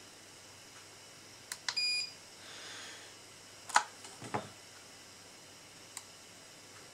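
Handheld multimeter's button beep: a button click, then one short high beep about two seconds in. A moment later come sharp clicks and a knock as the test probes are pulled from a mains socket, and one more small click near the end.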